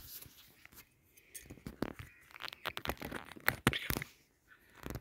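Handling noise: irregular rustling and scraping on fabric with scattered small clicks, busiest in the middle few seconds, as a hand and phone move over a bedspread among small metal parts.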